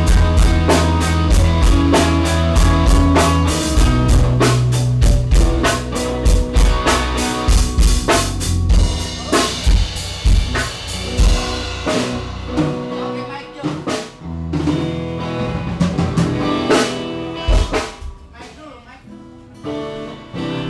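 Band music with a drum kit playing a steady beat under guitar, thinning out about two-thirds of the way through and dropping low shortly before the end.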